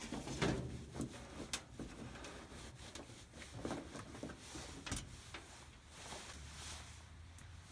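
Scattered light clicks and knocks of a 5/16 nut driver and sheet-metal screws as screws are backed out of a Goodman electric air handler's metal cabinet panel.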